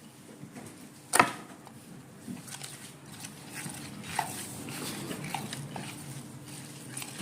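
Ghee and water being rubbed around a plate by hand, a wet swishing and scraping with a few short squeaks, as the ghee is washed and worked toward a cream. A sharp knock about a second in.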